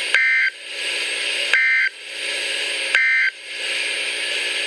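Emergency Alert System end-of-message data bursts on a NOAA Weather Radio broadcast: three short bursts of two-tone digital data, evenly spaced about a second and a half apart. Steady radio static hiss fills the gaps between and after them, marking the end of the warning message.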